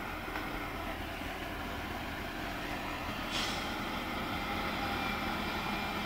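Tatra 148 fire tanker's air-cooled V8 diesel engine running steadily as the truck drives slowly along a dirt track, with a short hiss about three seconds in.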